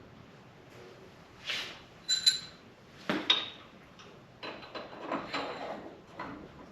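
Steel front-axle spacers and hardware being handled: two sharp, ringing metal clinks about two and three seconds in, then a stretch of rattling and scraping as the parts are moved and fitted.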